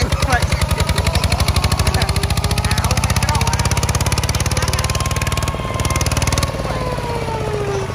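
Kubota single-cylinder diesel engine on a two-wheel walking tractor running hard while pulling a plough, a fast, even chugging beat that quickens over the first two seconds and then holds steady, easing slightly near the end.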